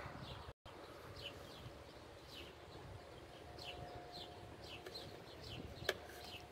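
Small birds chirping repeatedly, short quick descending chirps, faint under an outdoor background hiss. There is a single sharp click about six seconds in.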